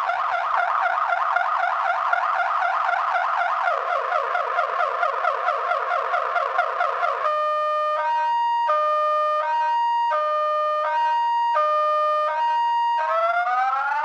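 Viper car alarm siren in full panic mode, cycling through its tones: a fast warble for about seven seconds, then a high-low two-tone alternation, then repeated rising whoops near the end.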